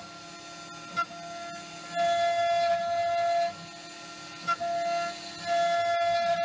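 CNC milling machine cutting a wooden turbine blade: a steady high-pitched machine whine that comes on and drops out in passes of about a second and a half, over a lower steady hum. Short sharp clicks come about a second in and again near four and a half seconds.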